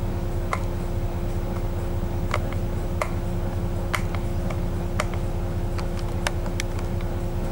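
Steady hum of an idling bus engine heard from inside the bus, with a constant drone over it. Irregular sharp clicks sound every half second to a second.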